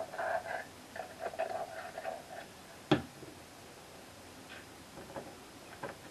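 Small metal clicks and a scratchy rattle as a lathe chuck jaw is oiled and handled, then one sharp knock about three seconds in, with a few light ticks as the jaw is offered up to the three-jaw chuck.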